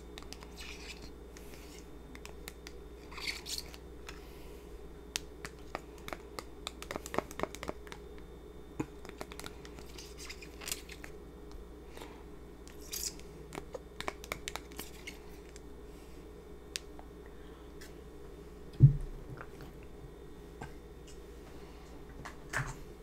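Table knife scraping spicy cheese sauce out of a small sauce cup onto lasagna: a scattered run of light scrapes and clicks. One loud thump about three-quarters of the way through.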